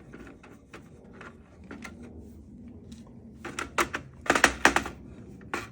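Small clicks and light rattles of a screwdriver working on the plastic back plate of a ring light, with a quick run of sharper clicks from about three and a half to five seconds in.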